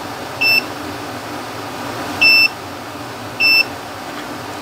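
Digital multimeter on its continuity setting beeping three times, short high-pitched beeps, the middle one a little longer, as the probes bridge a resoldered pin and its test point on an instrument cluster circuit board. Each beep means that solder joint makes a good connection.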